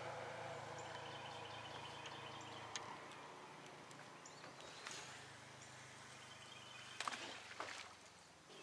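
Faint outdoor ambience: a soft, steady low hum that fades after a few seconds, a few faint high chirps, and a handful of soft clicks.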